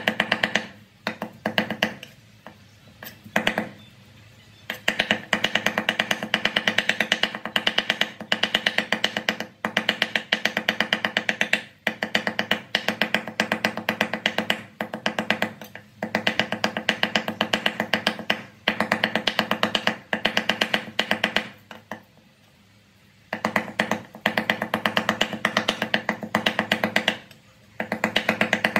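Steel cleaver chopping raw fish rapidly on a wooden chopping board, mincing it for fish cake. The blows come in long quick runs broken by short pauses, one about three-quarters of the way through.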